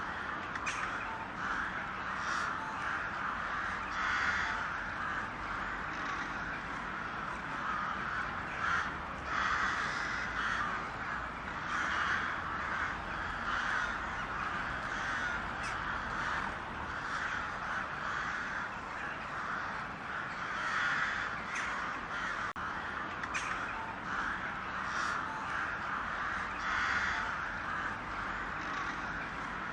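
A large flock of crows cawing together, a continuous din of many overlapping calls.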